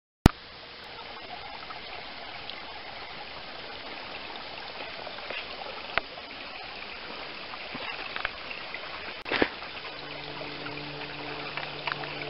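Small woodland brook flowing over rocks, a steady rush of water. It starts with a sharp click, a couple of light knocks come midway, and a faint low hum joins near the end.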